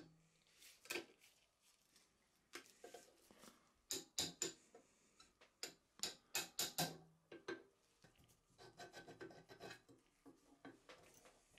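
Faint scraping and sharp metal clicks from dismantling a rusty pivot joint on an antique cast-iron potato chip cutter: a split pin is pulled out with tweezers and the steel pivot pin is pushed out of the lever joint. The sounds come as irregular clicks, then turn into softer rubbing near the end.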